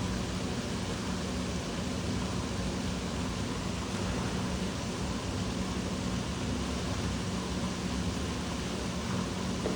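Steady rushing of water at a water park, an even wash of noise with a low steady hum underneath.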